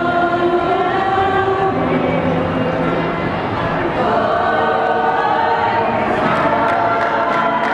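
Church youth choir of mixed voices singing together, holding long notes.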